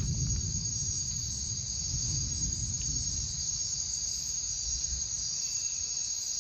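Rainforest insect chorus: a steady, high-pitched shrill drone, with a low rumble underneath that fades near the end.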